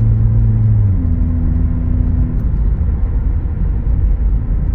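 Subaru Outback heard from inside the cabin while driving: a steady engine hum over low road rumble. The hum changes pitch about a second in and fades out over the next second or so, leaving the tyre and road rumble. There is no clunk or grinding, and the driver describes the car as having no shake from the brakes and no noise.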